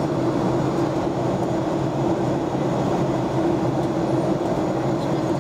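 Steady in-flight cabin noise of a Boeing 737-500 from a window seat over the wing: the CFM56-3 turbofan's drone and the rush of air past the fuselage. A steady hum over an even rush, with no change in level.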